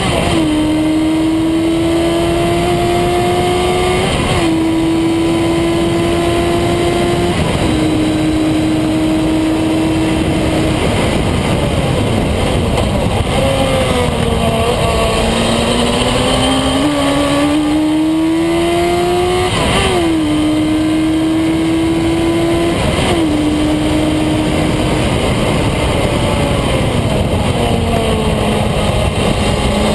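Vehicle engine on a hard lap, its note climbing under full throttle and dropping at each upshift: three quick shifts in the first seven or eight seconds. It slows for a corner, accelerates again with two more upshifts, slows once more and picks up again near the end, over a steady rush of wind and road noise.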